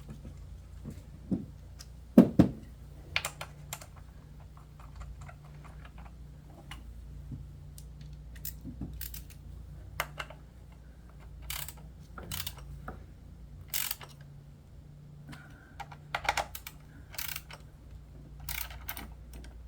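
Irregular light clicks and taps of hand tools, bolts and the coil pack being fitted and snugged down in an engine bay, with one louder knock about two seconds in and small flurries of clicks later on.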